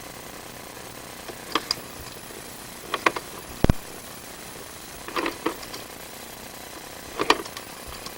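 Irregular sharp clicks and knocks over a steady hiss, from a sewer inspection camera and its push cable being fed along a drain pipe; one heavier knock about three and a half seconds in.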